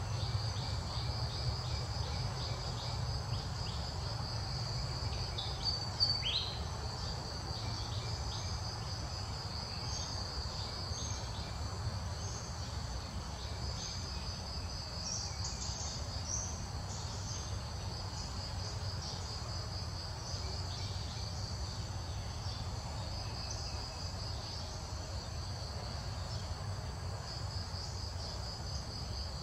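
Steady insect chorus, a high pulsing buzz, over a low rumble. About six seconds in comes a short squeak falling in pitch, the loudest moment, and a few brief high chirps follow around the middle.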